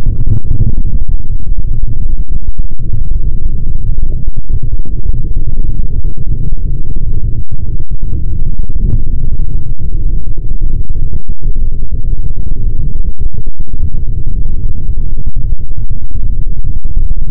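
A loud, steady, deep rumbling noise with no tune or voice in it, broken by a few brief dips.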